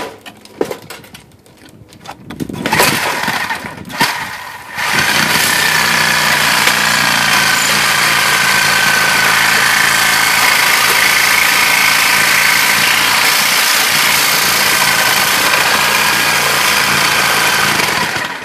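Reciprocating saw with a metal-cutting blade cutting out old window framing: a few short knocks and brief bursts first, then the saw runs steadily from about five seconds in and stops near the end.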